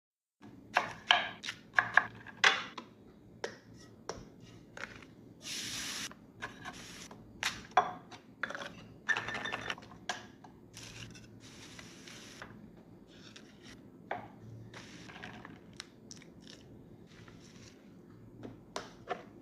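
Kitchen food-preparation sounds while making samosas: irregular sharp knocks and clicks of a knife and utensils on a board and dishes, with scraping and a few short hissing, rustling passes.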